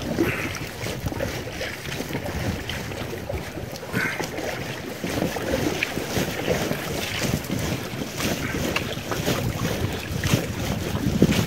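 Water rushing and splashing irregularly against an inflatable rubber boat drifting in a river current, with wind buffeting the microphone.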